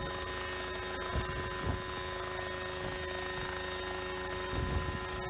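Homemade coaxial helicopter hovering just off the ground, its engine and rotors running at a steady pitch. A few low gusts of wind buffet the microphone.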